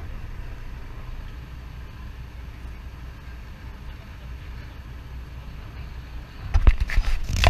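A vehicle engine rumbles low and steady. About six and a half seconds in, loud, sudden bursts of noise break in and take over near the end.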